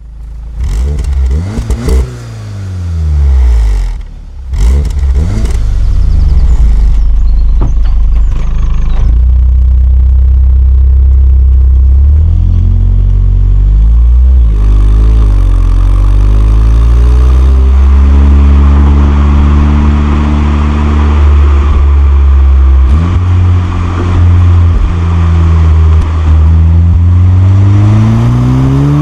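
Volkswagen Golf R's 2.0 TSI four-cylinder engine and exhaust, revving up and down several times in the first few seconds. The engine note then holds mostly steady with a few shifts in pitch, and climbs again near the end.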